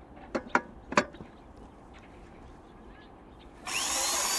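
Three sharp clicks as the pipe clamps of a butt-fusion welding machine are fastened. Near the end a power tool starts suddenly with a loud whirring and a rising whine: the electric facing tool shaving the pipe ends flat before welding.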